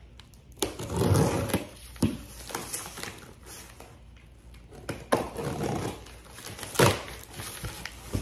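Packing material rustling and crinkling in several irregular bursts as a small item is unwrapped by hand, with a sharp knock about seven seconds in.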